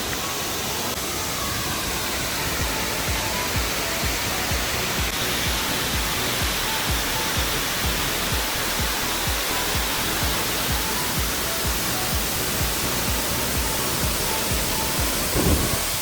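Waterfall rushing steadily. Faint short notes recur throughout, and there is a brief low thump near the end.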